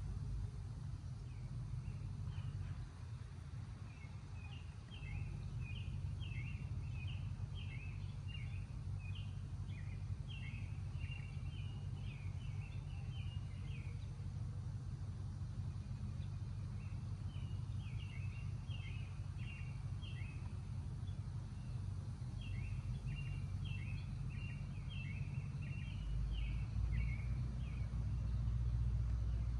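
A songbird singing in three bouts of quick, short chirping notes, over a steady low rumble that gets louder near the end.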